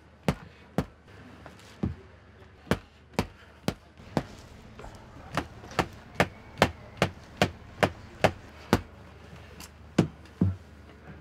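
Wooden mallet striking the string of a traditional cotton-fluffing bow, beating and loosening cotton for quilt filling: a run of sharp, dry strikes, uneven at first, then a steady beat of about two and a half a second, with two last strikes near the end.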